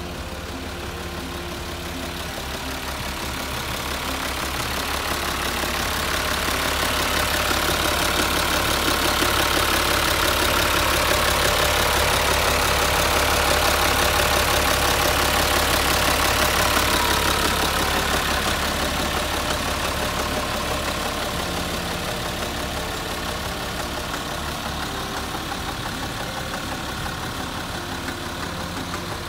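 Isuzu Forward truck's diesel engine idling steadily with the cab tilted open, growing louder toward the middle and easing off again near the end.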